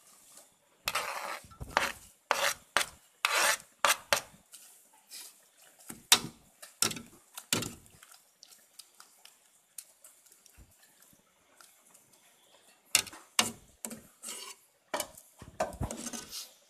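Metal ladle stirring in an aluminium cooking pot, scraping and clinking against its sides. The clinks and scrapes come unevenly in two spells with a quiet gap between them.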